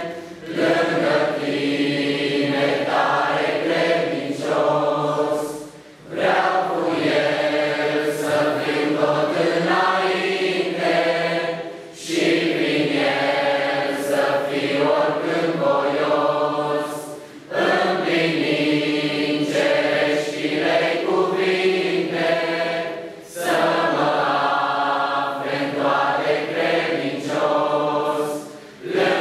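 A congregation of men and women singing a hymn together, in phrases about five to six seconds long with short breaks for breath between them.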